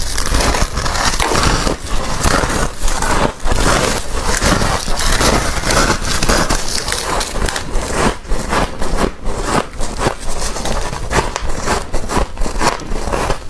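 Thick humidifier-grown freezer frost being crushed and scraped: continuous dense crunching made of many small quick cracks, with no pause.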